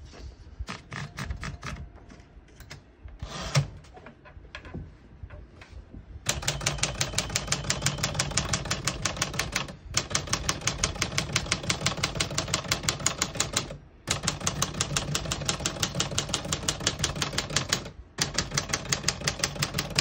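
Smith-Corona Sterling manual portable typewriter: a few scattered clicks, then fast, even typing at about five keystrokes a second as every key is struck in turn along one line, in runs with brief pauses about every four seconds.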